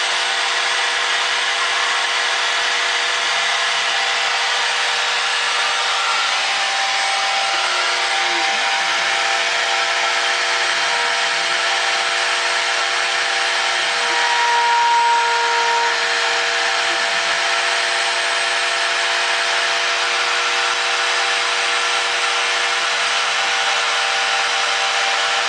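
Homebuilt three-axis CNC mill cutting a test piece: the spindle runs steadily over a constant cutting noise. The axis motors' tones change and glide in pitch every few seconds as the toolpath changes direction. A brief higher tone and a small rise in level come about halfway through.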